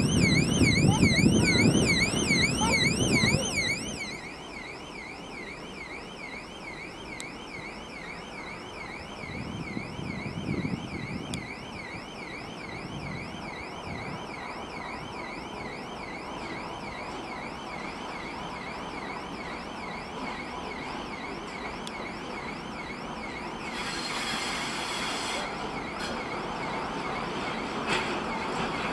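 A level-crossing warning signal sounds a rapid, loud electronic warble for about the first four seconds, then stops. After that a ChME3 diesel shunting locomotive runs steadily as it pulls a freight train, with a brief hiss a little before the end.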